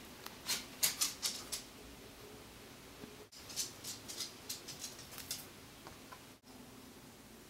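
Light clicks and scratches from close-up handling while painting a fingernail with a nail-polish brush, in two short flurries over a faint room hum.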